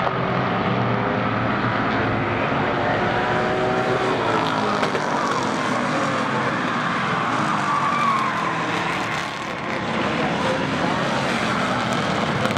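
Several street stock race cars running hard around a short oval track, their engines' pitch rising and falling as they accelerate through the turns and pass.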